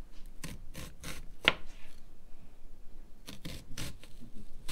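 Kitchen knife slicing through an onion onto a plastic cutting board: about five cuts, a pause of roughly a second and a half, then three more.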